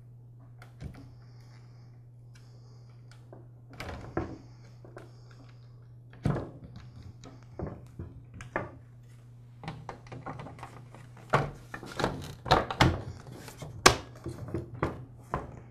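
Scattered clicks and knocks of hands working wires and a terminal connector inside a string trimmer's open plastic handle, then a run of louder plastic knocks and clicks as the two halves of the Black and Decker CST1200 handle housing are fitted together. A faint steady low hum lies underneath.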